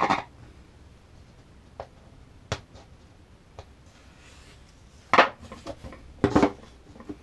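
Handling noise from hand tools and a plastic surfboard fin box on a fiberglassed board: a few light taps, then two louder plastic clatters about five and six seconds in as the fin box is set into its routed slot for a test fit.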